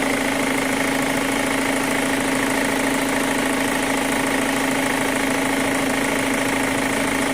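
2005 Chevy Cobalt's 2.2 L four-cylinder engine idling steadily, making the noise the owner says sounds like a lifter, a noise this motor did not make when he got it.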